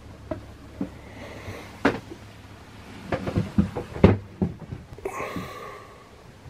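Irregular knocks and thumps from someone moving about inside a small yacht's wooden cabin, the loudest about two and four seconds in, with a short creak or squeak just after five seconds, over a low steady hum.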